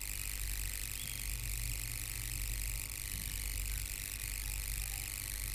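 Steady low hum with a faint even hiss: recording background noise, with no distinct events.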